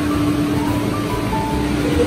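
Background music: a melody of short notes over a steady drone.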